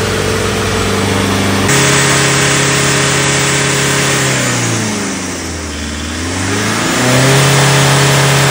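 Mahindra Scorpio's mHawk turbo-diesel engine running steadily. Around the middle its speed sinks and then climbs back up about two seconds later.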